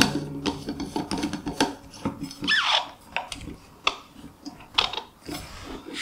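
Screw-on lid being twisted shut on a stainless steel tumbler: the threads rub and rasp with irregular small clicks, and there is one short squeak about halfway through.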